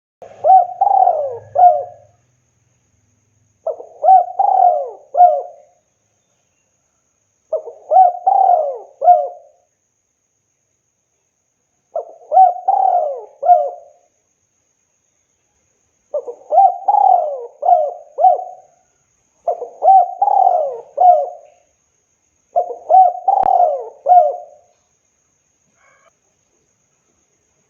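Spotted dove cooing: seven phrases of about three notes each, one every three to four seconds.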